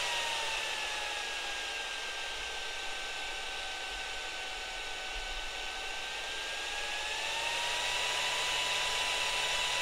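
12-volt four-pole brushless DC fan, driven by an AH276 chip and overvolted to about 20 volts, running with a steady rush of air and a motor whine. The whine drops in pitch about a third of a second in, holds lower, then climbs back up around seven seconds in as the fan's speed sags and recovers near the limit where the chip backs the speed off.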